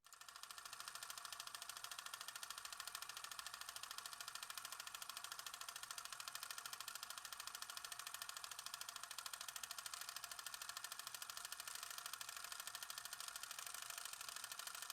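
Film projector running: a fast, even mechanical clicking with hiss, starting and stopping abruptly.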